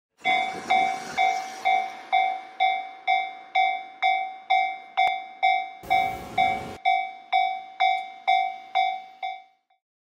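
Japanese railway level-crossing warning bell ringing at a steady pace of about two strikes a second, each strike a clear ringing tone that dies away. A short burst of noise, about a second long, comes about six seconds in, and the bell stops just before the end.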